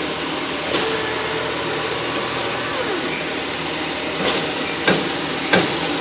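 Steady machine hum of a workshop, with a few sharp clicks and knocks as the tire is handled. The knocks come about a second in and three times in the last two seconds, the loudest near the end.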